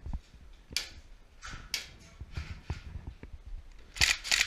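Footsteps and the rustle and knock of a player's gear, heard close up from a head-mounted camera. Near the end there are two loud, sharp rasps in quick succession.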